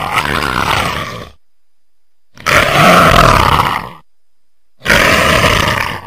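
Leopard roaring: three long, harsh roars of about a second and a half each, with short silent pauses between them.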